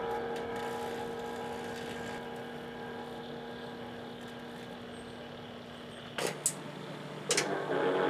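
Microwave oven running with a steady, slowly fading hum. Sudden louder noises break in about six seconds in and again about a second later.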